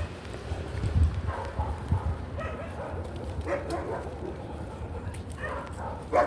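A dog whining and yipping in several short bouts.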